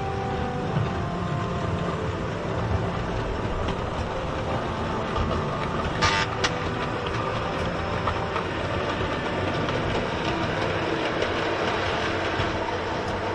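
Model railway locomotives running round the layout: a steady whirr and rattle of small motors and wheels on the track, with one sharp clack about six seconds in.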